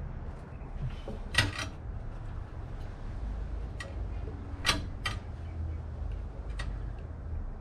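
About six sharp metallic clicks and clinks, in pairs at irregular intervals, from hand tools and a hose clamp being worked while a breather hose is pushed onto its fitting, over a steady low hum.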